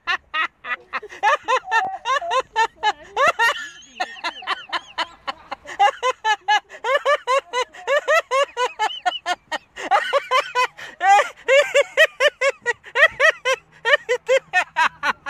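High-pitched, rapid cackling laughter in quick repeated bursts of several a second, with a short break about four seconds in.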